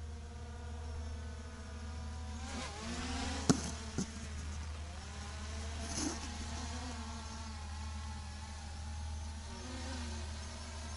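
A steady buzzing whine made of several pitches that waver and glide up and down, like small electric motors, over a low steady hum. Two sharp clicks come about three and a half and four seconds in.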